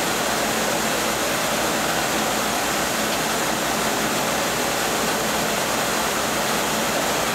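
Steady, even rushing hiss of a running Okuma Multus B300 CNC lathe, with no clicks or changes.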